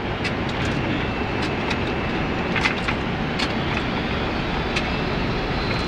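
Steady rush of airflow and engine noise inside a Boeing 767 cockpit on final approach, with a few light clicks around the middle.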